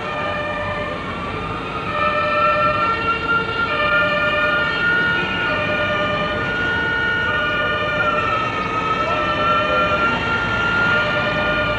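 Fire-engine sirens sounding together over street traffic. One siren wails on a high held tone that rises at the start, then dips and climbs back about eight seconds in, while another steps on and off between tones about once a second.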